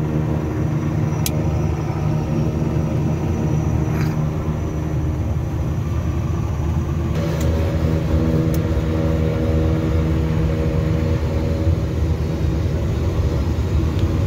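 Twin PT6A turboprop engines of a King Air F90 running, heard from inside the cockpit as a steady, many-toned drone. About seven seconds in it grows a little louder and fuller.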